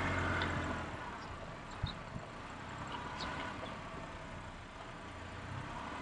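Car engine running at low speed, a steady hum as the vehicle creeps along a dirt road, with a single dull knock about two seconds in and a few faint high chirps.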